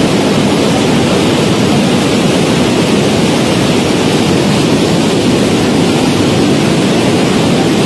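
Muddy flash-flood torrent rushing and churning through a rocky channel: a loud, steady noise of turbulent water.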